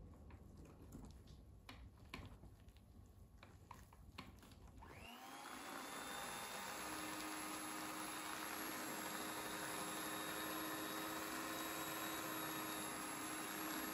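Electric hand mixer switched on about five seconds in, its motor spinning up and then running steadily as the beaters mix batter with grated carrot. Before it starts there are a few light clicks and knocks.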